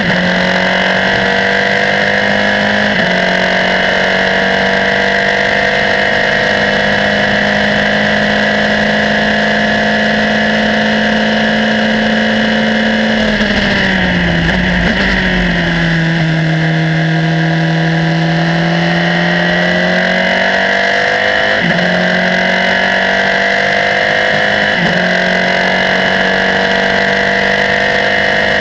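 Formula 3 race car's engine heard from on board at high revs. The note drops sharply with an upshift about three seconds in. About halfway through it falls away as the car brakes and changes down, then climbs again as it accelerates, with two more upshifts near the end.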